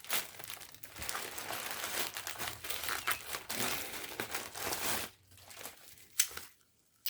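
Packaging being torn and crumpled by hand to open a parcel, a dense crinkling and tearing that stops about five seconds in, followed by a couple of faint rustles.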